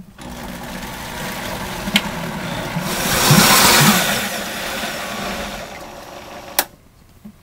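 High-powered countertop blender running, its tamper pushed down through the lid to work a thick berry and coconut mix. It starts with a click, grows louder about three seconds in, eases off, and cuts off with a click shortly before the end.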